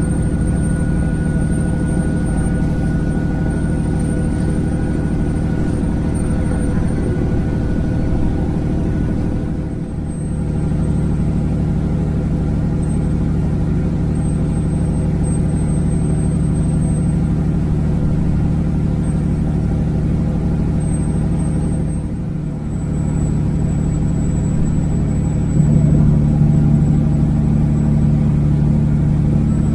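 Kenworth W900 semi truck's diesel engine pulling a loaded trailer up a long mountain grade, running steadily under load. The sound drops briefly twice, about ten and twenty-two seconds in, and grows louder about twenty-five seconds in.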